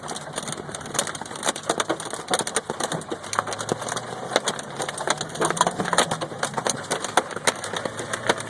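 Hailstones pelting a Mazda Miata, a dense, irregular clatter of hard hits on the car heard from inside the cabin. A low engine idle hums faintly underneath.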